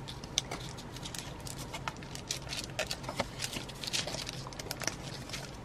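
Paper crinkling and rustling under fingers as a folded paper pocket is pressed and smoothed down: a run of irregular small crackles.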